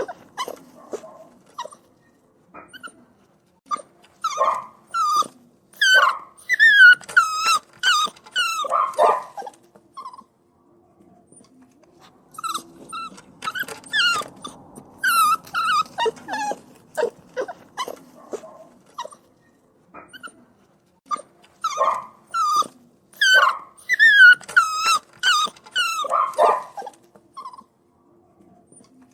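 Puppies whining and crying: bouts of short, high-pitched whimpers and yelps, some falling in pitch, with quieter pauses between the bouts.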